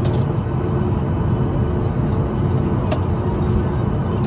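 Cabin noise of a Boeing 737 MAX 8 taxiing, heard from a window seat over the wing: its CFM LEAP-1B engines at idle give a steady low rumble with a faint hum and an airy hiss above. A single sharp click sounds about three seconds in.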